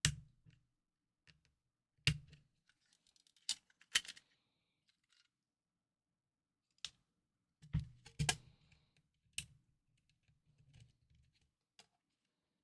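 Irregular sharp plastic clicks and taps, some with a dull knock on the work surface, as the small shell parts and buttons of a Nintendo DSi XL are pried loose and handled. There are about a dozen, spaced unevenly, with a quick run of them a little before the middle.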